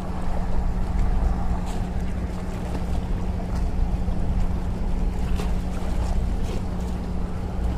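A steady low motor hum with wind rumble, and faint light splashes of water as a goliath grouper is handled at the surface.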